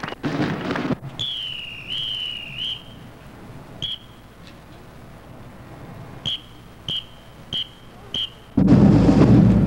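Loud band sound cuts off abruptly about a second in. Then a drum major's whistle gives one long warbling blast, a short tweet, and four short, evenly spaced tweets counting the band in. About a second before the end the band strikes up loudly.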